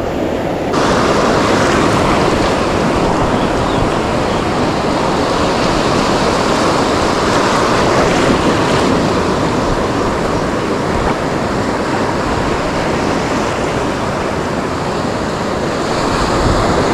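Ocean surf washing in, a loud steady rush mixed with wind on the microphone; the rush jumps up just under a second in and then holds.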